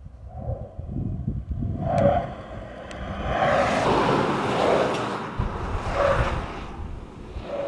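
Pickup truck driven through a slalom handling test, heard as wind buffeting the microphone and tyre and road noise that swells and fades in waves, loudest about two, four and six seconds in.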